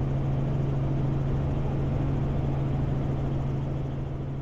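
Robinson R44 Raven II helicopter cabin noise in a hover: a steady low drone from the engine and rotors with a dense rushing hiss over it, fading out near the end.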